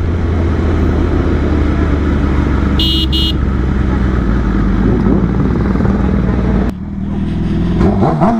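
Sportbike engine running steadily at low speed in traffic, with road noise; two short high toots sound about three seconds in. After a sudden change near the end, an engine revs up with a rising pitch.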